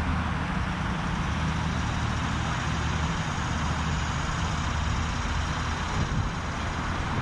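A motor vehicle engine running steadily: an even low hum under a constant rush of outdoor noise.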